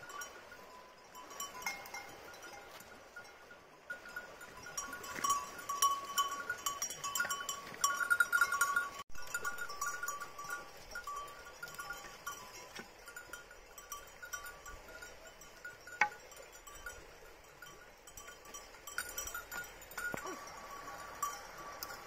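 Small metal bells on a herd of goats clinking and ringing on and off as the goats move through the undergrowth, loudest for a few seconds near the middle.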